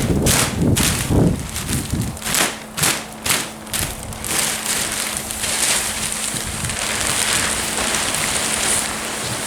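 Plastic silage sheet being cut with a knife and pulled back off the maize clamp, crackling sharply two or three times a second, then giving way about four seconds in to a steady hiss.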